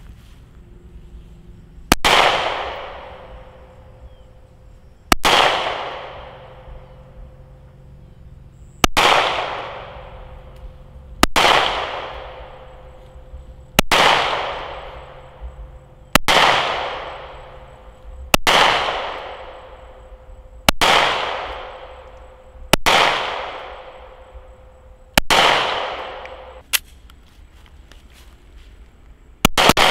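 Sig Sauer P365 9 mm subcompact pistol fired as ten single shots, two to four seconds apart, each with a short echoing tail. A sharp click follows, and a quick string of shots starts just before the end.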